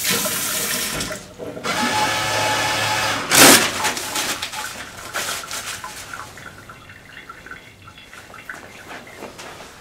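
Water running from a sink tap over hands in two spells during the first three seconds, then a brief loud rasp and quieter paper rustling as the hands are dried with a paper towel.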